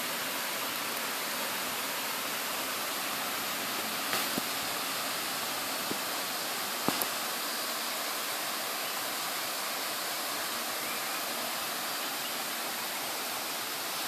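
Waterfall rushing: a steady, even hiss of falling water. A couple of faint clicks come about four and seven seconds in.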